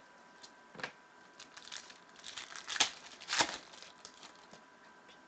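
Foil wrapper of a 2014 Panini Prizm World Cup trading-card pack crinkling and tearing as it is opened: a run of sharp crackles, loudest between about two and three and a half seconds in.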